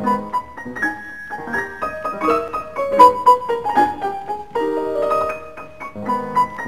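Piano music: a quick run of notes and chords.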